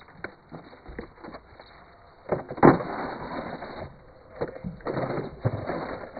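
Bricklaying work: tools and a plastic mortar tub knocking and scraping, with a louder rush of scraping noise a couple of seconds in that lasts about a second, and more scraping later.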